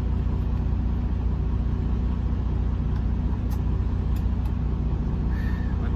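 Semi-truck's diesel engine idling, heard from inside the cab as a steady low hum, with a few faint clicks from a GPS suction-cup mount being handled.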